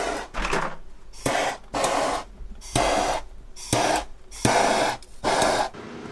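A person blowing hard through the homemade brass-tube heater core in about eight short, forceful puffs, roughly one a second, to pressure-test its soldered joints for leaks.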